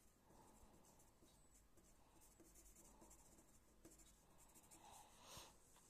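Faint scratching and light taps of a pencil point on paper as small dots and short strokes are drawn, with one slightly louder stroke near the end.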